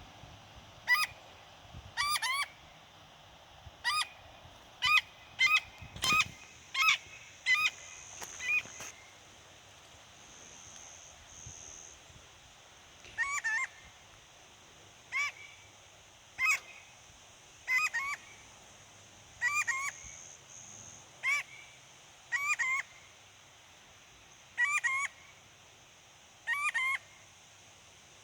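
A wild bird calling over and over: short, sharp two-part calls in quick runs, one every second or so, with a pause of a few seconds in the middle.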